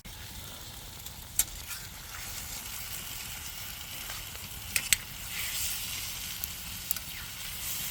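Chicken bites sizzling as they fry in a pan over a campfire, a steady hiss with a few sharp pops.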